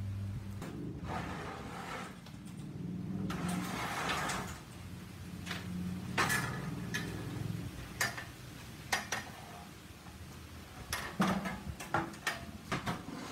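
A wheelchair-ramp storage box mounted on a van's rear door being handled and its lid opened and shut: scraping and rattling, then a string of sharp clicks and knocks from the lid and its latch, most of them in the last few seconds.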